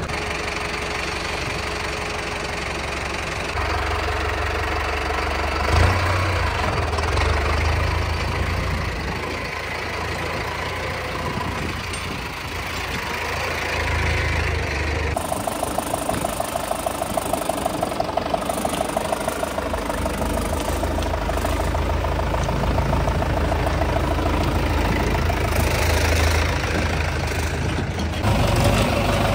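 Mahindra farm tractors' diesel engines running steadily at a low, rumbling idle. The sound changes abruptly about halfway through, followed by a few seconds of even, rhythmic pulsing.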